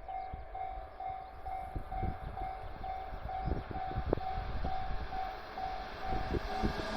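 Japanese level-crossing warning bell ringing, one electronic tone repeating evenly about twice a second, over a low rumble: the signal that a train is approaching the crossing.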